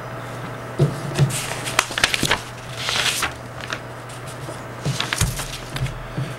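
Handling noises at a desk: a scatter of clicks, taps and rustles, busiest in the first half and again about five seconds in, over a steady low hum.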